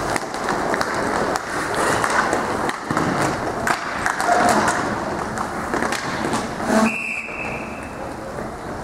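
Roller hockey play: inline skate wheels rolling and scraping on the plastic rink floor, with sticks clacking on the puck and players' voices calling out. A single whistle blast, held about a second and dipping slightly, comes about seven seconds in.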